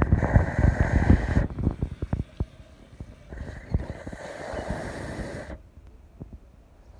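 Phone microphone handling noise: rumbling and knocks as the phone is gripped and moved about, loudest in the first second and a half, with a stretch of hiss in the middle that stops abruptly.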